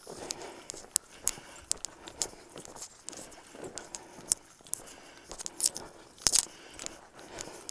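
Footsteps crunching on packed trail snow: an uneven run of sharp crunches and clicks, a few each second, the loudest about six seconds in.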